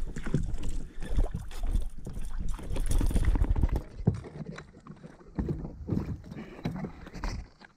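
Irregular knocks, clatter and splashes on a fishing kayak, with wind rumbling on the microphone underneath. The rumble and knocking stop abruptly near the end.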